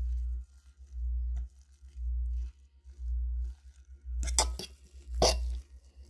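A utensil stirring and squishing soft hot mashed potatoes with butter and cream cheese in a bowl, with two louder sharp scrapes or knocks about four and five seconds in. Under it runs a low hum that pulses on and off about once a second.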